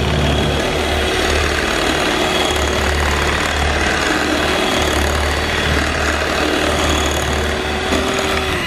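Electric hand mixer running steadily, its beaters whisking double cream and icing sugar in a glass bowl, a constant motor hum with one steady tone.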